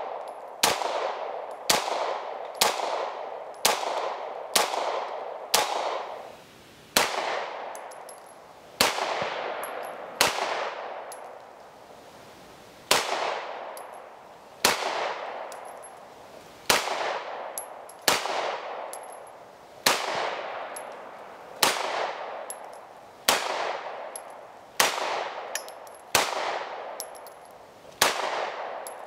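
Walther PDP F 9mm pistol fired in a steady string of single shots, about one every one to two seconds, each crack followed by a long echo.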